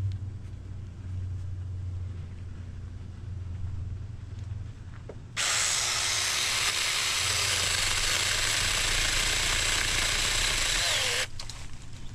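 A Saker 4-inch mini cordless electric chainsaw cutting through a live oak branch. A loud, steady buzz starts about five seconds in and cuts off suddenly about a second before the end. A low hum comes before it.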